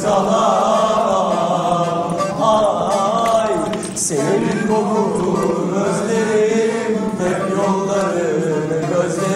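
A group of men singing a song together in unison over a steady musical accompaniment, the melody held in long wavering lines.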